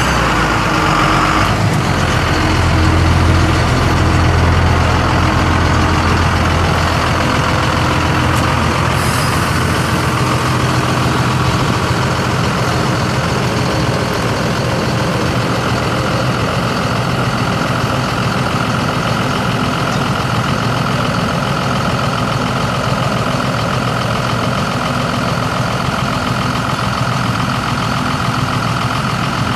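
Cummins ISB 5.9-litre inline-six turbo diesel of a Ford F800 truck running steadily. Its low note is heavier for a few seconds near the start, then it settles to an even idle.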